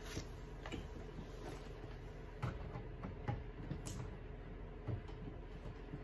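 Handling noise from working on hair: a few scattered light clicks and taps over a low steady hum.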